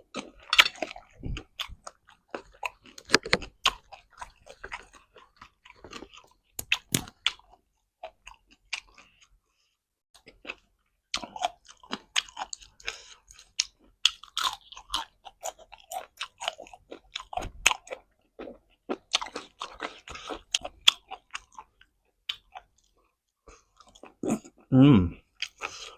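Close-miked chewing of crisp raw vegetables: irregular crunchy bites and chewing with short pauses, and a brief low 'mm' hum near the end.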